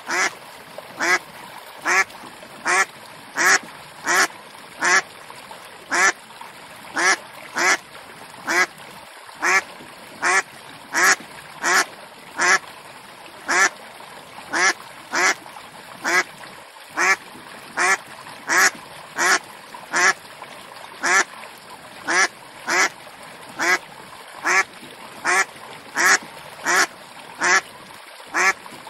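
Duck quacking over and over in a steady, even rhythm, about three short quacks every two seconds.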